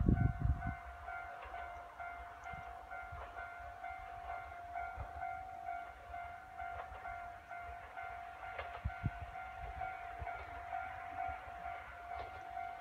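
Railway level crossing warning bell ringing with a steady, repeating electronic tone as a train approaches. Wind buffets the microphone, loudest in the first second.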